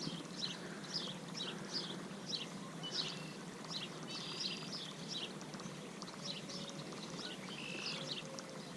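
Birds chirping: a steady run of short, quick, falling chirps, about two a second, over a faint steady outdoor hiss.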